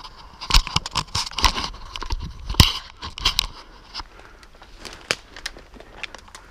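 Footsteps crunching through dry leaves and undergrowth, with twigs cracking and brush scraping against clothing: irregular crackling, busiest in the first three seconds or so, then sparser.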